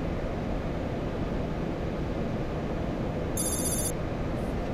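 Steady cockpit noise of a Boeing 737-800 in flight: airflow and engine hum. About three and a half seconds in, a short, high electronic chime sounds for about half a second.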